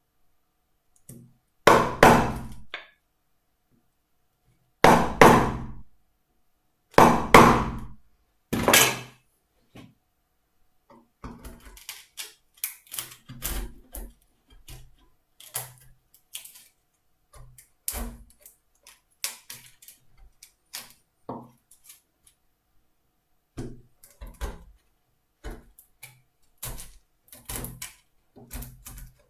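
Chisel being driven into wood while chopping out a recess about 4 mm deep: four heavy blows in the first nine seconds, then a long run of lighter, quicker, irregular taps and knocks.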